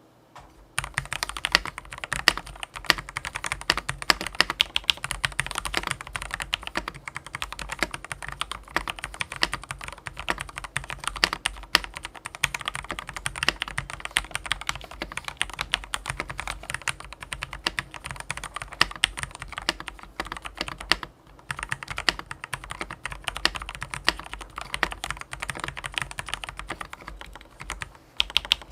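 Fast, continuous typing on a fully lubed Ducky One mechanical keyboard with Everglide Aqua King linear switches, a dense run of keystroke clacks. The typing starts about a second in and pauses briefly about three quarters of the way through.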